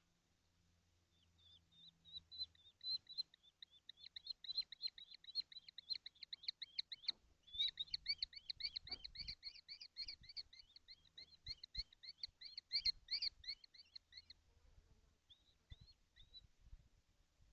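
Common kestrel giving a long run of rapid, evenly repeated high calls, about five a second, broken once briefly midway and trailing off in a few single calls near the end. A few faint low knocks sound among them.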